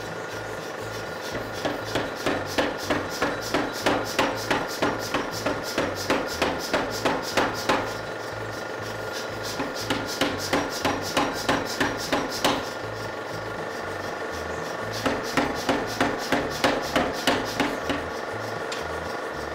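Power hammer striking a glowing piece of hot steel in three runs of rapid, even blows, about three a second, with short pauses between the runs while the piece is repositioned.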